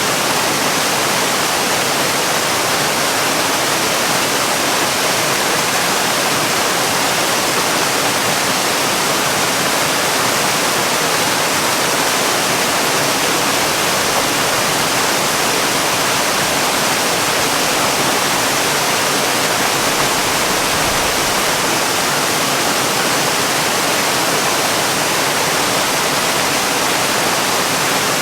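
Waterfall: water falling and splashing in a steady, unbroken hiss.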